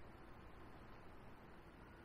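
Near silence: a faint, steady background hiss with no distinct sounds in it.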